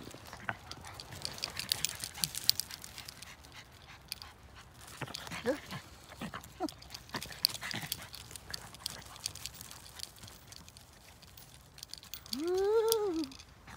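Small dogs playing on wood chips: paws scuffling and crunching through the chips, with a couple of short whimpers midway. Near the end one dog gives a single drawn-out call, about a second long, that rises and then falls in pitch.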